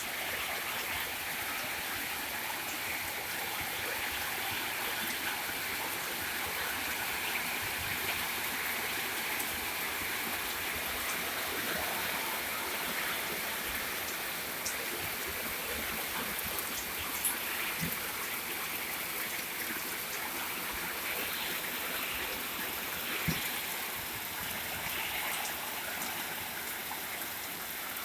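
Heavy rain falling steadily: an even, continuous hiss with a few faint ticks of drops partway through.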